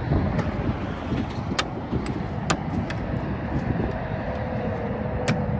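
Steady low rumble of wind on the microphone, with three sharp clicks as the camper's metal front compartment lid and latches are handled.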